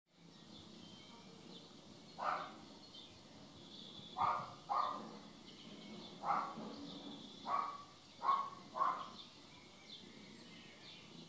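A cat giving about seven short cries, some in quick pairs, over faint birdsong in the background.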